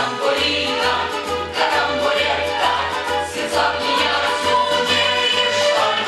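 An operetta cast singing in chorus with instrumental accompaniment over a steady, regular bass beat.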